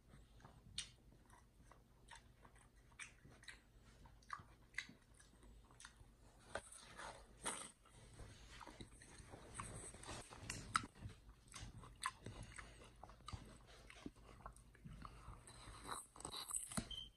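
Chimpanzee biting and chewing the flesh of a mini watermelon: faint, irregular wet crunches and chews, coming thicker from about six seconds in.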